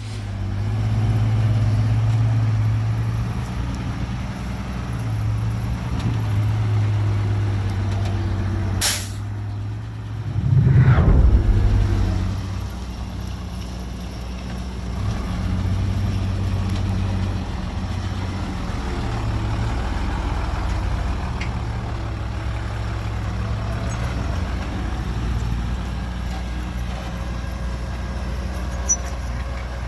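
Heavy dump truck's diesel engine running steadily, with a short sharp air-brake hiss about nine seconds in and a louder low surge a couple of seconds later.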